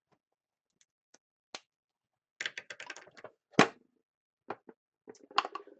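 Irregular clicks and taps, a few scattered at first, then a quick run of them about two and a half seconds in, a sharper knock just after, and a few more near the end.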